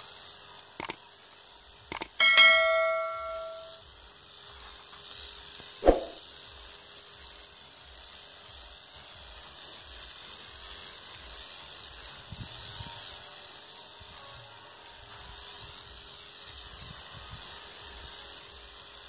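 Steady faint hiss of a backpack sprayer's nozzle misting rose bushes. About two seconds in, a loud metallic bell-like ring fades out over a second and a half, with a few sharp clicks and knocks around it.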